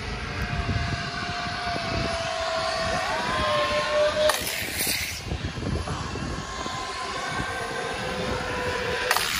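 Zip-line trolleys running along the steel cable overhead, giving a whine whose pitch slides down and then rises a few times, over wind buffeting the microphone.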